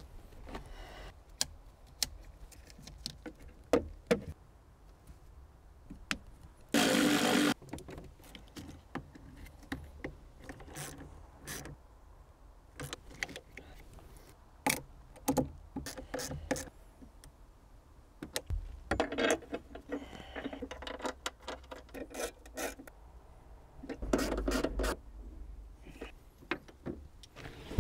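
Socket wrench and metal hardware on a car battery being refitted in its boot tray: scattered clicks, knocks and rattles of the tools, with a brief louder rasp about seven seconds in and quick runs of clicking twice in the second half.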